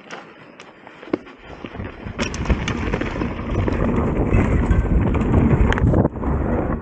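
Mountain bike riding down a trail: a few sharp clicks and knocks, then wind buffeting the microphone and tyres rolling and rattling over the ground, building up about two seconds in as speed picks up.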